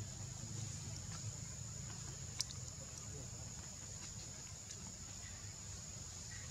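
Outdoor ambience: a steady high-pitched hum over a low rumble, with faint ticks and one sharp click about two and a half seconds in.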